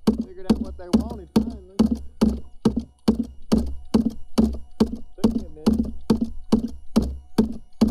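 A DIY fish thumper made of scrap aluminum knocking in a steady rhythm, a sharp thud a little over twice a second, used to draw white bass to the boat.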